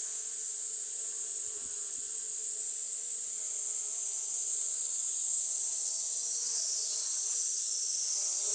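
Quadcopter drone's propellers buzzing steadily while it hovers, the pitch wavering slightly as the motors adjust.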